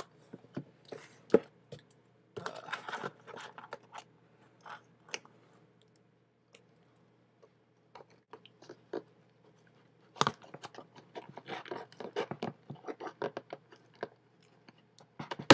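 Cardboard shipping box being handled and opened: irregular crunching, scraping and crackling of cardboard and packing. There is a quieter stretch of a few seconds in the middle, then a dense run of crackling toward the end.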